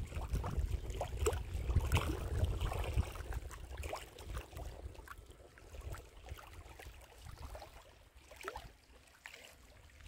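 Small lake waves lapping and splashing against a rocky shore in irregular little splashes, with a low rumble for the first three seconds. The lapping grows quieter toward the end.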